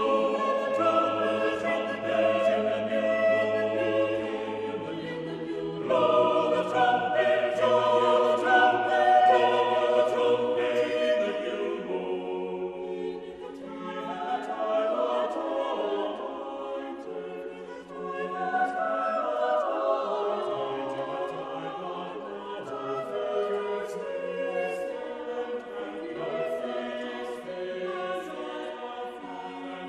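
Choral music: a choir singing slow, sustained chords, with a low bass note held under the first part.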